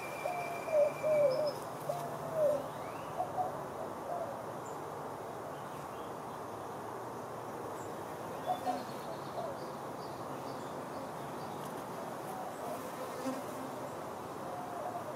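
Honeybees buzzing in flight around the hive entrance, a steady hum throughout. Short bird calls come in the first couple of seconds and again about eight seconds in.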